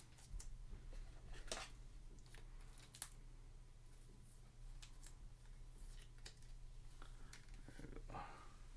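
Faint rustling and small clicks of a trading card in a plastic sleeve being handled and slid into a rigid plastic top loader, over a low steady hum.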